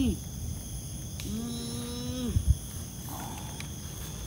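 A person's low, drawn-out moan, held on one pitch for about a second and then falling away; the tail of an earlier moan drops off right at the start. Insects chirp steadily in the background.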